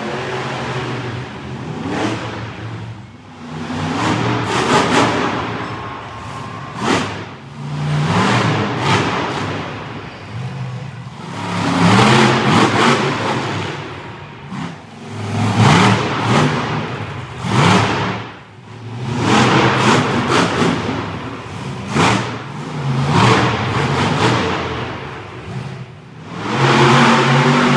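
Monster truck engines revving hard and easing off again and again, the pitch climbing and dropping every couple of seconds.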